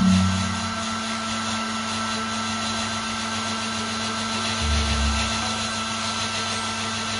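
Hand-held hair dryer running steadily, blowing warm air over a puppy's damp coat, with a constant hum under the whoosh of air. A brief low bump is heard a little past the middle.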